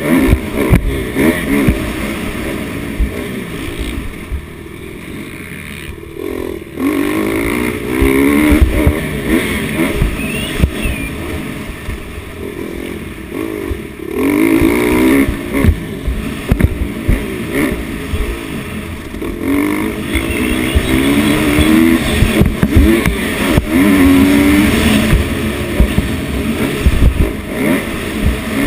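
Dirt bike engine revving hard and easing off again and again as the rider works the throttle around a motocross track. It drops back for a few seconds about four seconds in, then climbs through the revs again, heard close from the bike itself.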